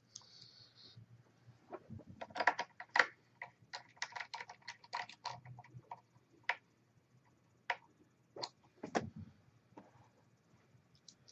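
Small irregular clicks and taps of a Phillips screwdriver turning the screws that hold a laptop's replacement LCD panel in its lid, with the screwdriver and plastic parts knocking; the clicks come thick and fast for a few seconds, then thin out to single taps.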